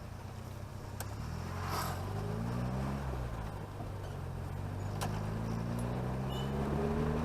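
Chevrolet Chevette engine pulling through the gears: its pitch rises for about two seconds, drops at a gear change, then climbs again. Two sharp clicks are heard, about one second in and about five seconds in.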